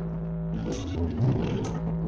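Live band music played loud through a large outdoor PA sound system. For about the first half-second the percussion drops out, leaving a held low note, then the drums and cymbals come back in.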